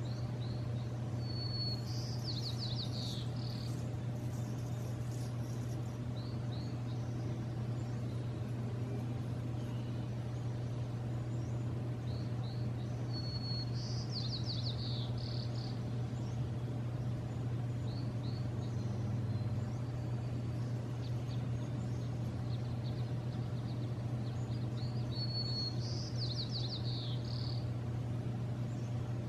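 A songbird sings the same short phrase three times, about twelve seconds apart: a brief high whistle, then a quick run of notes. A few faint chirps fall in between, over a steady low hum.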